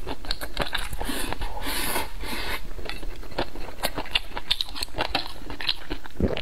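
Close-miked chewing of a mouthful of rice, with many small wet mouth clicks. Chopsticks click and scrape against a ceramic bowl.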